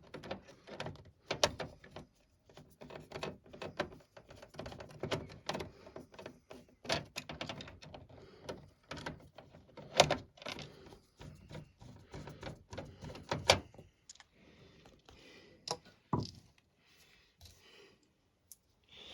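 Irregular clicks, taps and light knocks of a screwdriver and small parts being handled while the stock cooler brackets are unscrewed from a motherboard. The tapping is busy for most of the stretch, then thins out, with one dull thump about sixteen seconds in.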